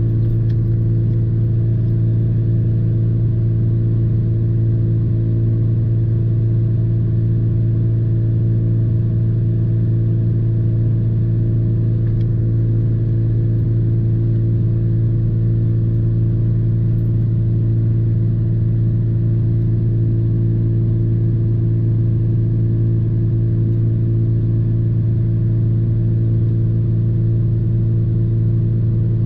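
Parked truck's engine idling, heard from inside the closed cab as a steady, unchanging hum.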